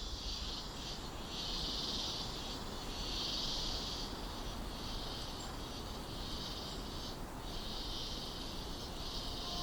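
A chorus of insects buzzing high, in bursts of about a second with short breaks between them, over a low rumble.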